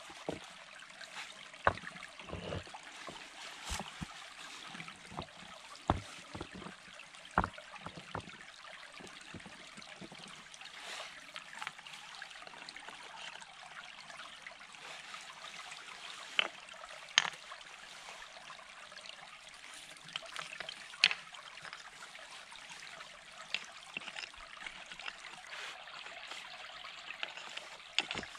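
A small stream runs steadily, with sharp clacks of flat stones knocking together as they are set into a dry stone wall, several at irregular intervals.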